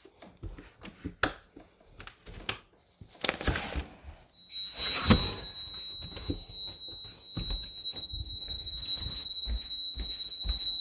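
Knocks and a short scraping rustle, then the Honeywell alarm system's sounder comes on about four seconds in with a steady high-pitched tone. It is the alarm going off because a window sensor has been tripped while the system is armed.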